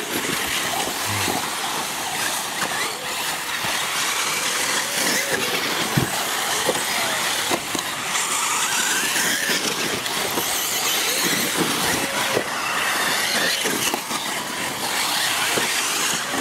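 Several radio-controlled racing buggies lapping a track, their small high-revving motors rising and falling in pitch as they accelerate and brake, with scattered sharp clicks and knocks.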